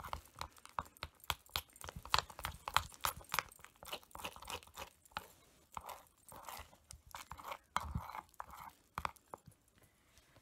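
Hand squishing and kneading a thick cornstarch, shampoo and body-cream slime paste in a bowl: irregular wet clicks and crackles, thick at first, thinning out and going quiet near the end.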